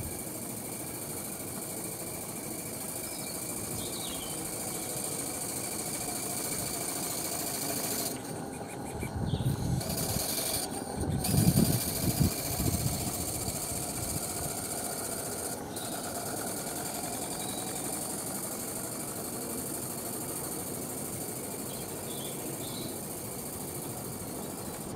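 Maxitrak 3/4-inch scale live-steam traction engine running under radio control. Its mechanical beat grows louder as it comes close, about nine to thirteen seconds in, then fades as it moves away, over a steady background hiss.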